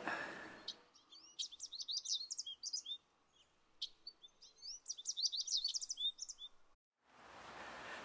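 Small songbird singing two quick phrases of high twittering chirps and rising whistles, with a short pause between them.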